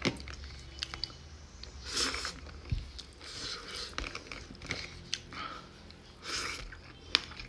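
A person chewing and eating rice and meat curry with the hand, close to the microphone: scattered small clicks and a few short rustling noises.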